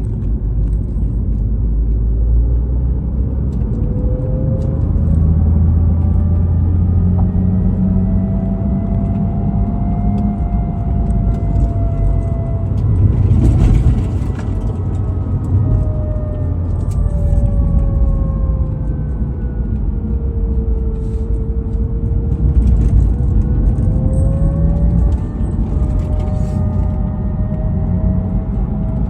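BMW Z4 Coupé on the move: steady low road and engine rumble with a thin whine that slowly rises and falls in pitch, the weird noise in question. A brief louder rush comes about halfway through.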